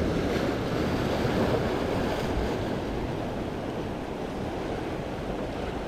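Waves washing over jetty rocks: a steady rush of surf that swells slightly early on and eases a little later, with some wind on the microphone.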